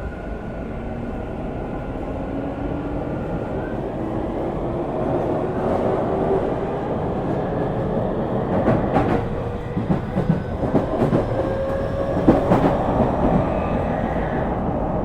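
A Tokyu 5000 series EMU's Hitachi IGBT-VVVF inverter and traction motors whining under acceleration, the tones climbing steadily in pitch, over the rumble of the running gear. From about eight seconds in, wheels click over rail joints. This car's inverter is known for a harsh odd noise in its asynchronous mode at low speed.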